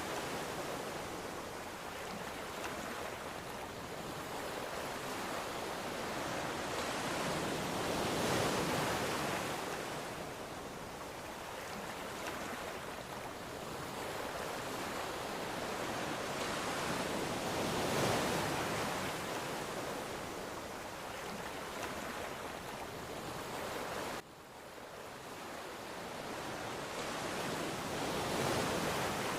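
Ocean surf breaking and washing up the shore, the rush swelling and easing about every nine to ten seconds. Near the end the sound drops suddenly, then builds again with the next wave.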